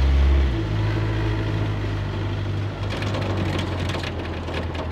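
Model T roadster pickup running on the road, its engine a steady low hum that eases off about half a second in. Light rattles and clicks come through in the second half.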